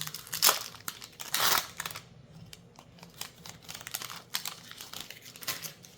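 A foil booster-pack wrapper being torn open and crinkled, loudest about a second and a half in, followed by lighter rustling and small clicks as the cards are handled.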